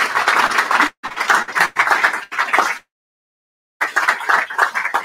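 Audience applauding with a dense patter of claps, which cuts off to dead silence twice, briefly about a second in and for about a second in the middle.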